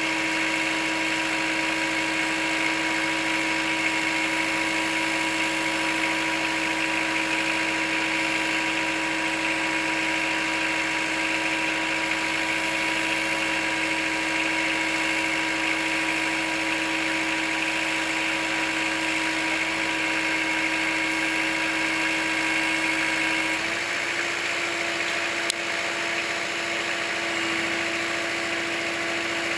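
Kubota L4600 tractor's diesel engine running steadily. Near the end its note steps slightly higher.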